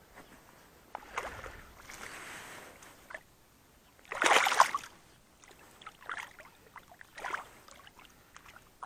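Water splashing in the shallows as a landed rainbow trout thrashes and hands work it in the water, in several short bursts; the loudest comes about four seconds in.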